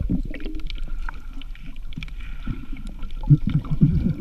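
Underwater bubbling and gurgling: many short bubble blips over a low water rumble from swimmers moving underwater, heard from below the surface. The bubbling is busiest a little after three seconds in.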